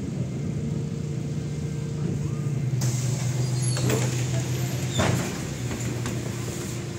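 MAZ 107 city bus's diesel engine running steadily, heard from inside the passenger cabin as the bus draws up at a stop. A hiss comes in about three seconds in, with two sharp knocks about a second apart.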